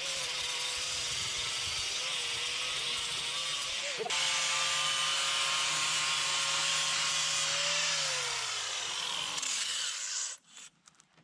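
Handheld angle grinder with a stiff sandpaper disc grinding mortar off concrete block and steel, its motor pitch wavering under load. After a brief break about four seconds in it runs steadily, then winds down in pitch and stops near the end.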